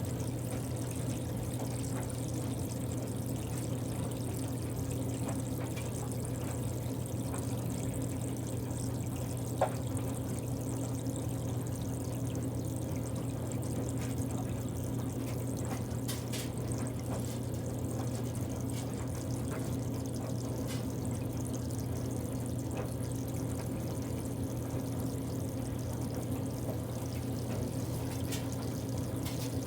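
Water running steadily into the tub of a Kuppet portable washing machine as it fills, over a constant low hum, with one sharp click about ten seconds in.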